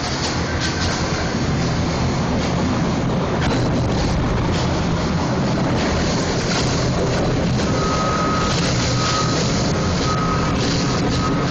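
Industrial paper shredder running with a steady, heavy rumble as it tears up paper from a roll. From about eight seconds in, a high beep repeats about once a second, like a forklift's reversing alarm.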